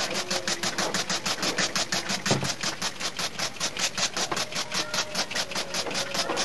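Hand trigger spray bottle (a bird mister) pumped rapidly, a steady run of short hissing squirts about five or six a second, spraying water onto a split AC indoor unit to rinse the soaped-up coil.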